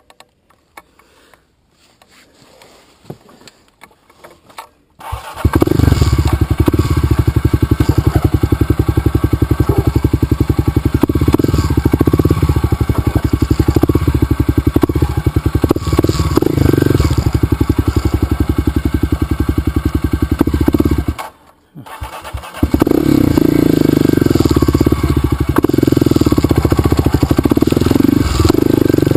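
Motorcycle engine starting about five seconds in and running steadily. It cuts out suddenly after about sixteen seconds, then starts again a second later and keeps running.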